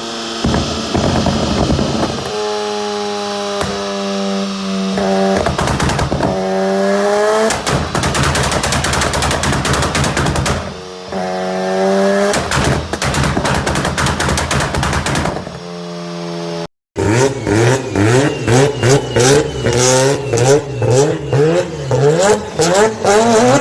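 Tuned car engines revving with fast strings of exhaust pops and bangs, crackling like gunfire between climbs in revs. A short break about 17 seconds in, then another engine revving and popping in rapid bursts.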